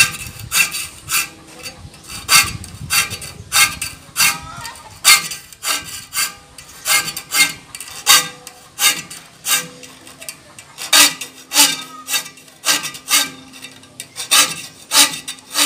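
A saw file is stroked across the teeth of a steel handsaw clamped in a vise, about three rasping strokes every two seconds. Faint metallic ringing from the blade lingers after some strokes. This is the blade being sharpened, its dull teeth filed one by one.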